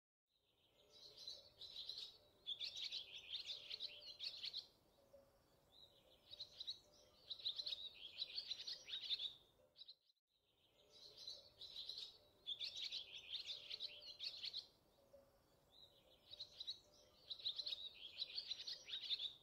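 Birdsong: bursts of quick, high chirps and trills in clusters a few seconds apart. The same ten-second recording plays twice in a row.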